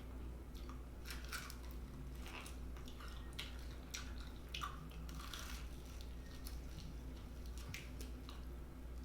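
Biting into and chewing a fried chicken wing in buffalo sauce close to the microphone, with irregular short crunches and chewing sounds over a steady low hum.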